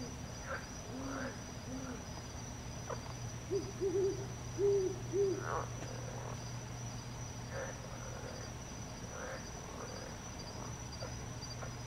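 An owl hooting: a quick run of about five short hoots from about three and a half seconds in, lasting under two seconds, with fainter, lower hoots near the start. A steady high insect trill runs underneath.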